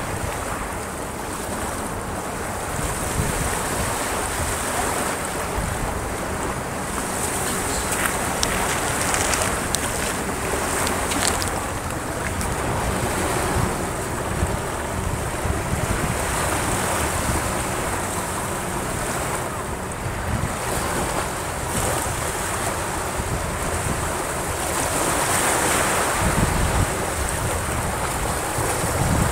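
Surf breaking and washing up on a sandy beach: a steady wash of noise that swells and eases, louder for a stretch near the end, with wind rumbling on the microphone.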